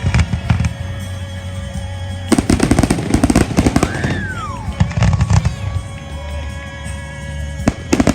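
Fireworks going off in rapid crackling volleys of bangs, three bursts in all. About four seconds in comes a whistle that rises and then falls. Music plays underneath.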